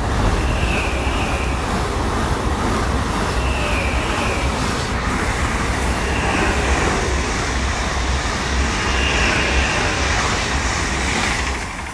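A train passing close by, a loud steady rumble and rush of wheels on rail with brief high squeals coming and going. The sound fades near the end.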